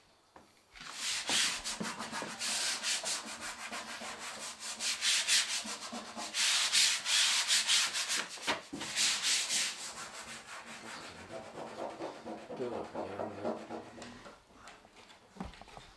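A glue brush and hands rubbing against a bus wall panel: adhesive being brushed onto the panel and Rexine vinyl cloth smoothed down over it, in rapid scratchy rubbing strokes. The strokes are loudest for the first ten seconds or so, then become quieter and duller.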